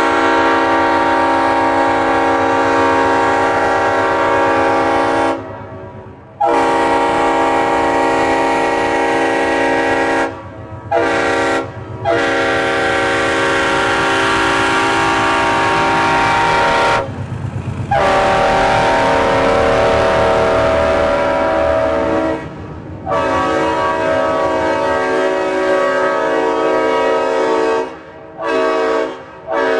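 Railroad multi-chime air horn sounding a chord in a series of long, loud blasts of about four to five seconds each, separated by brief breaks, with a couple of short toots mixed in. A low rumble continues underneath.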